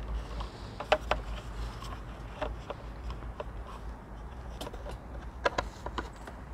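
Scattered sharp clicks and taps of plastic parts as a 3000GT's door-mirror glass, with its plastic backing plate, is handled and pressed into the mirror housing, the strongest about a second in and near the end, over a low steady rumble.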